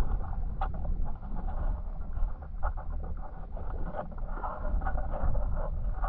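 River current heard underwater: a steady deep rumble with many small crackles and ticks from moving water and stones.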